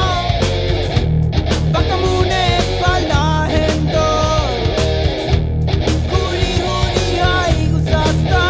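Rock music with guitar and a steady, heavy beat.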